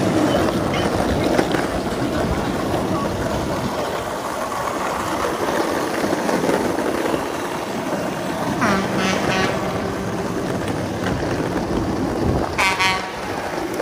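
Steady rush of road and wind noise while riding a longboard through city traffic, with two short, high-pitched horn honks, the first about two-thirds of the way in and the second near the end.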